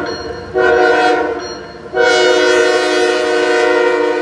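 Norfolk Southern diesel freight locomotive's air horn blowing a chord of several notes at once as the lead locomotive comes by: a blast ending about half a second in, a second short blast, then a long blast from about two seconds in.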